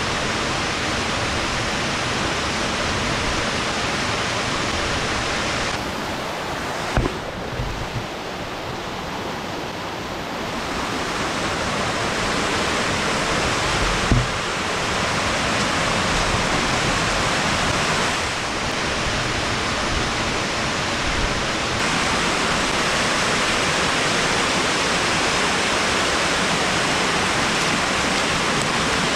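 Waterfall tumbling over rock ledges: a steady, loud rush of white water that dips a little about six seconds in and swells again later on. Two brief knocks stand out in the first half.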